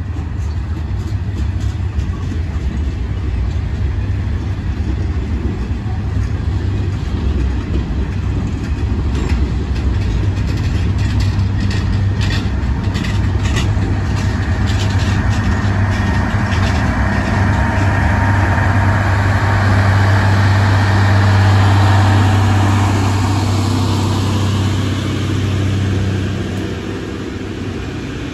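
Loram maintenance-of-way work train passing close by: a steady low engine drone from its on-board machinery that swells to its loudest about three quarters through, then eases. In the middle comes a run of sharp clicks from the wheels over the rail joints.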